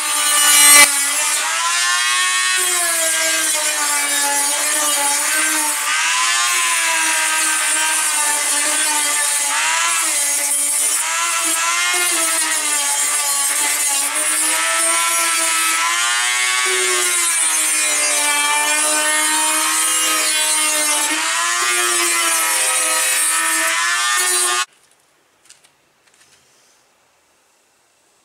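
A small high-speed handheld power tool deburring the freshly cut edges of the snorkel hole in the vehicle's sheet-metal fender. It spins up over the first second, then runs with a loud whine that wavers up and down in pitch as it bears on the metal, and it cuts off suddenly near the end.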